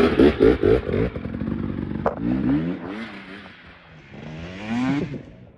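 Motorcycle engine revving and accelerating, with a loud, choppy first second; the pitch climbs about two seconds in, drops back, then climbs again near the end.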